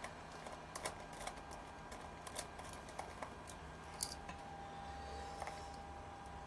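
Faint, scattered small clicks and taps of a wire and a small screwdriver being worked into a plug-in screw terminal block, with one sharper click about four seconds in.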